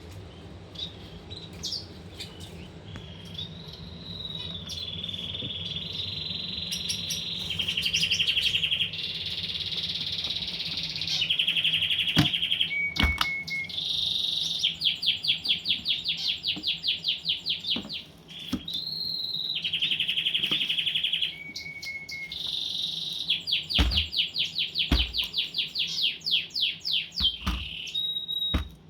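A finch singing a long, varied song of warbles and fast trills of rapidly repeated notes, with short breaks and the song ending near the end. A few brief knocks sound under it.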